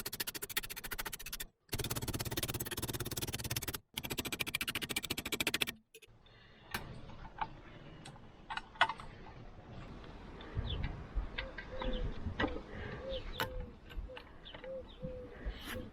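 Welding arc on thin sheet steel: three runs of steady crackling buzz, each about two seconds, in the first six seconds. Then scattered light taps, and a dove cooing near the end.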